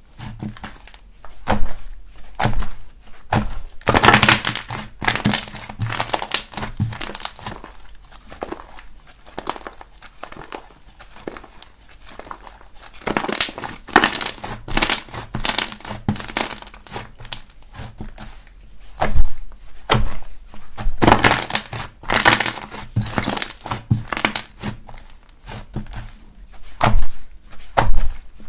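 Slime being squeezed and pressed by hand, crackling and crunching in irregular bursts, with several louder clusters of crackles.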